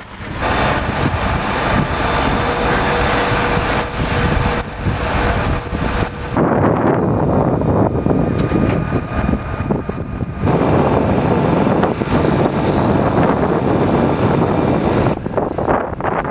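Roadside ambience: a steady rushing of wind and vehicle engine noise, with a deep rumble. The sound shifts abruptly about six seconds in and again about ten seconds in.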